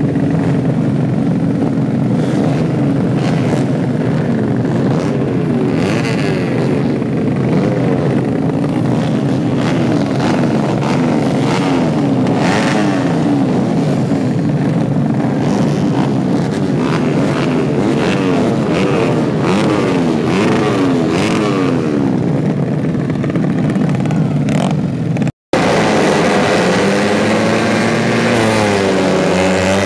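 Several tuned 130cc four-stroke racing motorcycle engines running and revving on a starting grid, their pitches overlapping and rising and falling. The sound drops out for a moment near the end, and then one nearer engine revs up and down more clearly.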